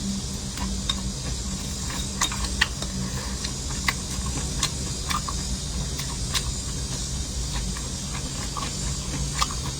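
A person eating: scattered short, sharp clicks and crunches of chewing and biting, over a steady low hum and hiss.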